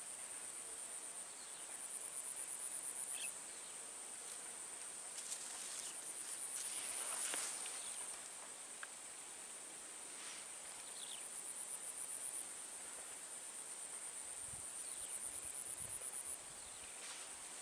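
Insects trilling in a steady high-pitched chorus, with stretches that pulse rapidly and swell louder every few seconds.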